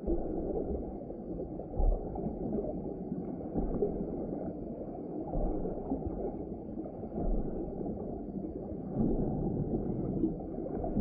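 A dull, steady rush of water heard underwater through a sealed camera housing, with occasional low thuds.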